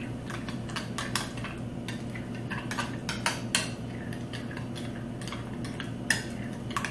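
Spoon clinking and scraping against a bowl in irregular strokes, stirring a thick Greek-yogurt dressing.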